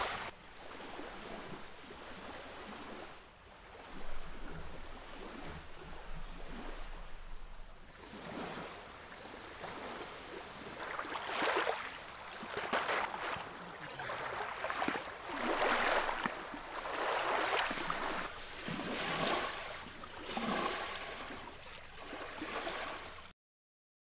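Small waves lapping on a sandy lakeshore, a soft wash that swells every second or so in the second half, then cuts off abruptly near the end.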